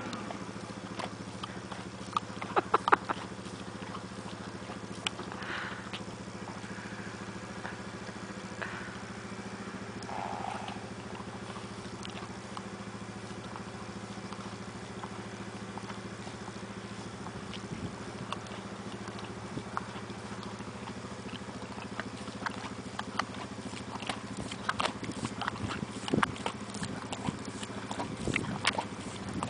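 Horse's lips and tongue working close to the microphone: scattered wet clicks and smacks, a loud cluster about three seconds in and many more near the end as the mouth comes right up to it, over a steady low hum.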